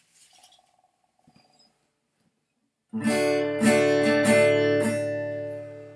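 An acoustic guitar starts strumming chords about three seconds in, after a few faint small sounds; the strums ring and fade away near the end. It is the introduction to a sung chorus.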